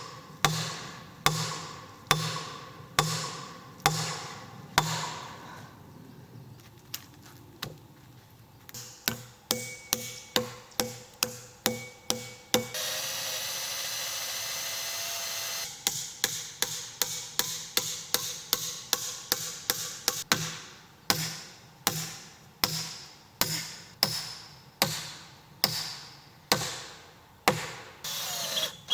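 Hammer striking nails into wooden timber in a steady rhythm of about one blow a second, speeding up for a while, with a cordless drill whirring for about three seconds around the middle.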